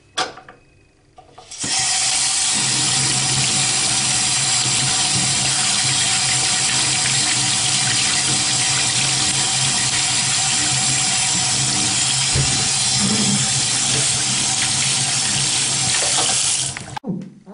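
Water running hard from a tap, a steady rushing that starts about a second and a half in and cuts off suddenly near the end.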